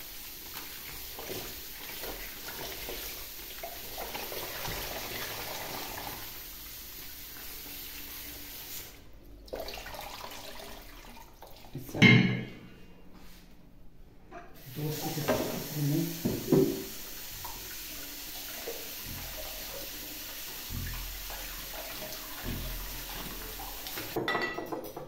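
Kitchen tap running into a sink as vegetables and then herbs are rinsed by hand under it. The water stops briefly twice, with a loud knock about halfway through and some clattering of dishes just after.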